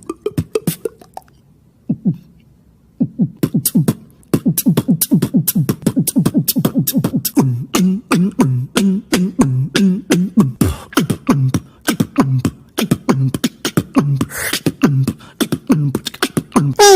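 Beatboxing: mouth-made percussion with fast clicks and short low bass drops, turning about seven seconds in into a steady rhythm of hummed low bass notes under the clicks. There is a brief pause near the start and a hissy burst about fourteen seconds in.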